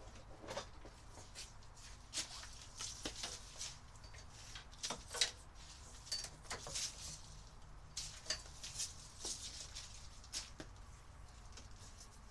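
Someone handling small objects out of view: scattered light clicks, taps and rustles at an irregular pace.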